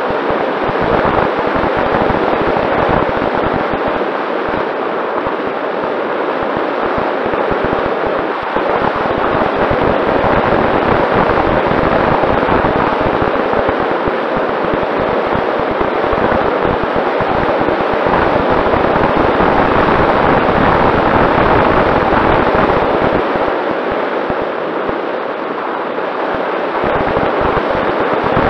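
Airflow rushing and crackling over the onboard camera's microphone on a Mini Talon RC plane in flight, with its Sunnysky 2212 electric motor and propeller giving a faint steady whine underneath.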